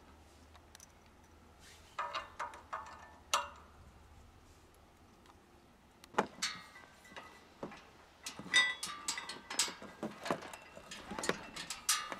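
Metal parts of a steel Smith machine frame clinking and knocking as it is assembled: a few ringing clinks about two seconds in, then a busier run of clinks and knocks through the second half.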